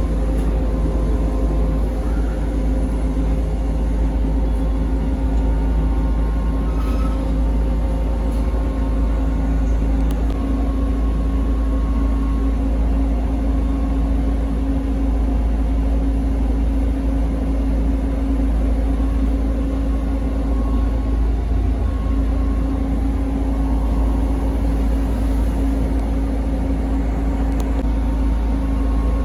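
ZIU-682V trolleybus heard from inside: a steady low rumble under a constant electrical hum, with no change in pitch.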